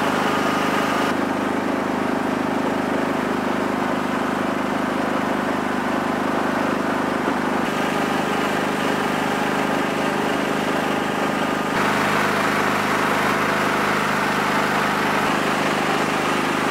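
Duck boat's motor running steadily under way, a constant low engine hum.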